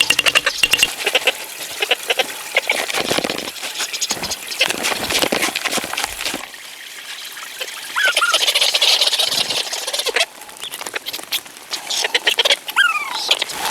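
Ducks calling in short falling calls, twice in the latter half, over a scatter of short clicks and knocks.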